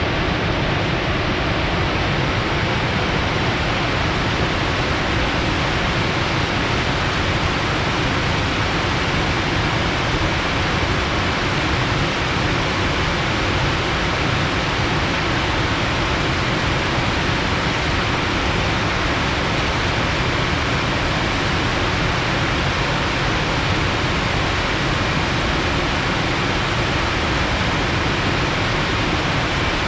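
Rushing water flowing fast after rain: a steady, even rush with a strong low rumble.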